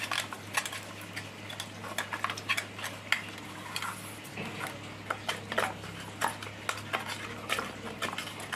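Pieces of rohu fish head being rubbed with salt and turmeric by hand in a stainless steel bowl: irregular clinks and scrapes as the fish pieces knock against the steel.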